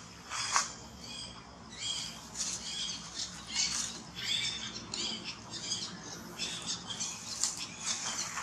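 Short, high-pitched squeaking calls from macaques, repeated many times at irregular intervals, with dry leaves crackling underfoot.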